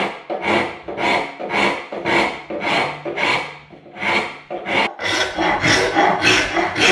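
Hand file strokes scraping across the wooden handle of a panel saw to reshape it, about two strokes a second. The strokes pause briefly a little before four seconds in, then quicken to about three a second.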